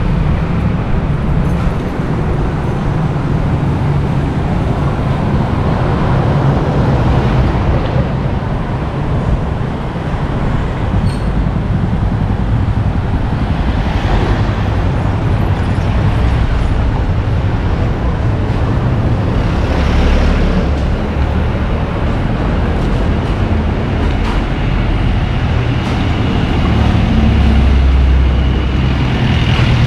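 Road traffic: vehicle engines running and passing steadily, with a few closer vehicles swelling louder now and then.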